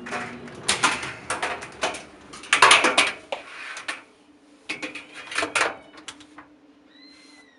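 Irregular clicks, knocks and clatter of a clothes dryer's door and a plastic baseball-cap washer cage being handled against the dryer's steel drum, in two bursts of handling that die down near the end.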